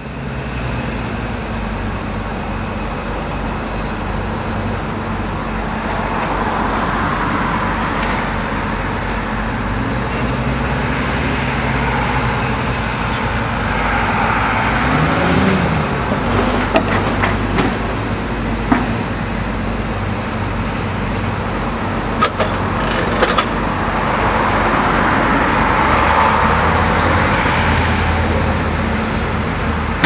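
Junttan PM 23 LC piling rig running, its diesel engine and hydraulics giving a steady drone that swells louder a few times, with a few short metallic clicks and clanks in the second half.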